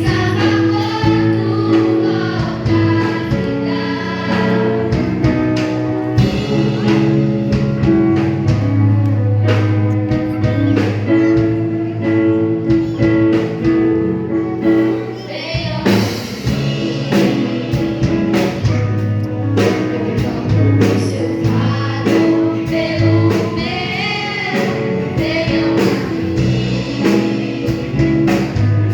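Gospel song: a choir singing over steady instrumental backing.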